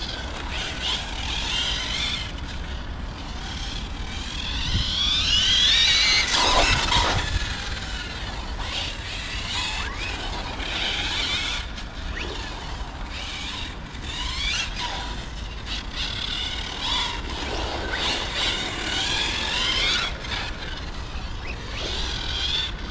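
Brushless electric motor of a 1/10 RC car whining, its pitch rising and falling again and again as the car accelerates and brakes on asphalt, loudest about six to seven seconds in.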